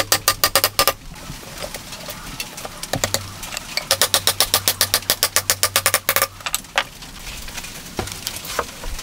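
Steel claw hammer tapping rapidly on a wooden joint, about eight or nine light blows a second, in two quick runs: one in the first second and another from about four to six seconds in, with a few scattered knocks of wood between them.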